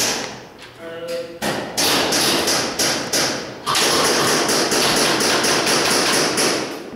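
Airsoft guns firing rapid, evenly spaced strings of shots, starting about a second and a half in and heaviest from about four seconds in.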